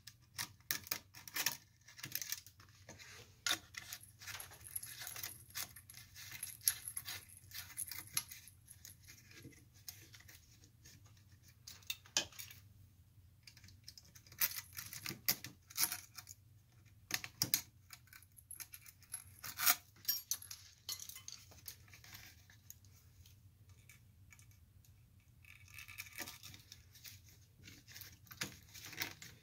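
Small metal lamp-socket parts clicking and clinking as they are handled and worked on by hand in a wooden jig: irregular sharp clicks and light metallic taps, with a quieter stretch a little after the middle.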